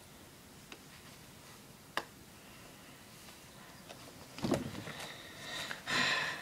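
Faint handling clicks, then rustling of a doll's hair rubbing close to the microphone, loudest just before the end.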